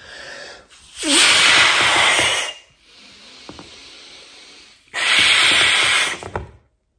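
A man blowing hard into a disposable glove to inflate it like a balloon: two long forceful breaths of rushing air, each about a second and a half, with a quieter breath between them.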